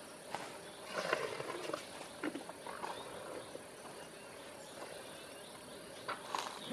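Asian elephant eating cut banana stems: irregular crunching and crackling as it chews, with a fresh bout near the end as its trunk gathers more stems and leaves from the pile.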